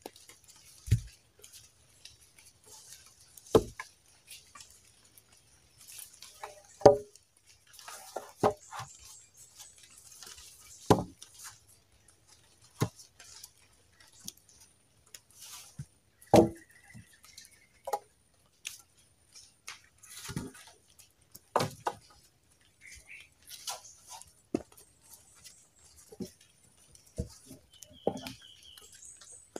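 Wooden logs knocking against one another and thudding onto the forest floor as they are laid side by side, about a dozen separate knocks at irregular intervals of a second or more.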